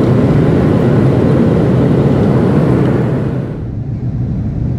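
Jet airliner cabin noise at a window seat during the takeoff run: a loud, steady roar of engines and rushing air. About three and a half seconds in it gives way abruptly to a quieter, duller cabin drone in flight.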